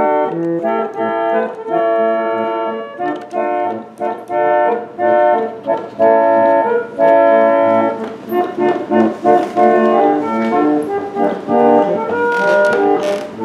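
Morrison & Corser melodeon, a foot-pumped reed organ, playing a tune in held chords that change every second or so.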